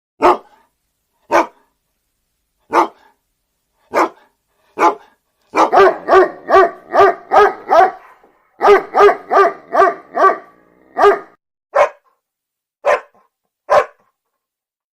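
A dog barking. Single barks about a second apart, then two quick runs of rapid barks through the middle, then a few single barks again near the end.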